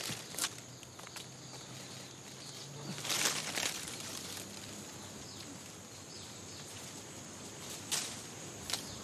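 Footsteps and rustling in plantation undergrowth, with a few sharp rustles or snaps about three seconds in and near the end, over a steady high hiss of outdoor ambience.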